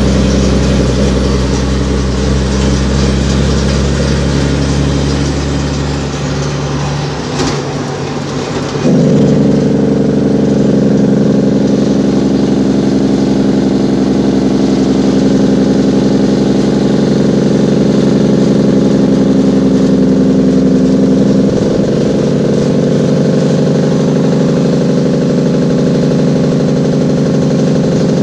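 Cummins N14 diesel truck engine running under way, heard from inside the cab as a steady drone. About seven seconds in the engine note sags, and at about nine seconds it comes back louder and holds steady.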